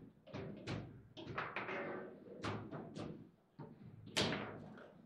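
Table football ball being knocked about by the plastic rod players in fast play, a quick series of sharp clacks and thuds, the loudest about four seconds in.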